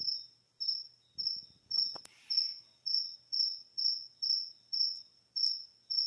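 Cricket chirping steadily: a short, high chirp repeated evenly about twice a second. A faint click sounds about two seconds in.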